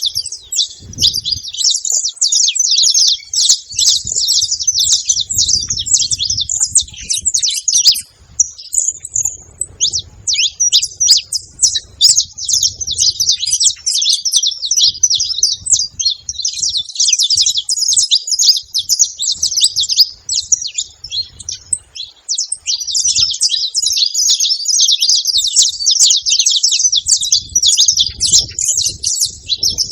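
Several saffron finches singing together: a dense, almost unbroken stream of fast, high chirps and trills, with a brief break about eight seconds in.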